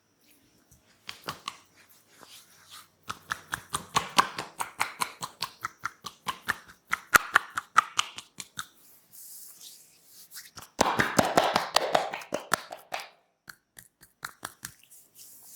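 Hands tapping and slapping on a person's body as percussive massage strokes, in quick runs of several strikes a second, with a louder, denser run about eleven seconds in.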